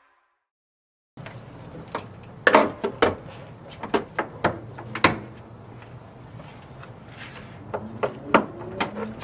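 Irregular sharp clicks and knocks of objects being handled, over a steady low hum. It starts after about a second of silence, and the loudest knocks come around two and a half seconds and five seconds in.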